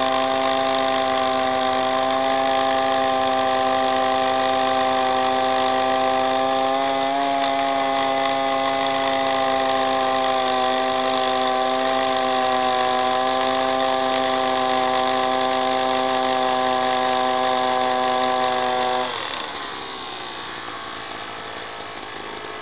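33cc gas-engined JH58 SDS-Max rotary hammer drill running flat out as it drills a 3/4-inch bit into a block, with a steady engine tone. About 19 seconds in the throttle is let off and the engine drops to a much quieter idle.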